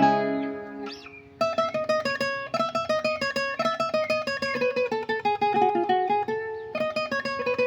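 Requinto guitar being played. A chord rings out and fades, then from about a second and a half in a fast single-note melody is picked, with a brief break near the end.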